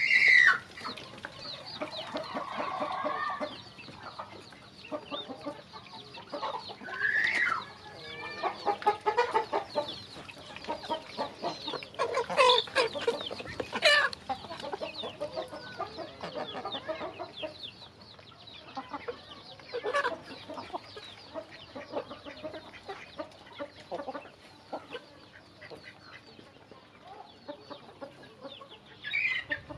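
Young chickens clucking and calling as they feed beside ducklings, over a dense patter of beaks pecking and dabbling at feed in a plastic pipe trough. A few louder calls stand out, the loudest right at the start and about twelve to fourteen seconds in.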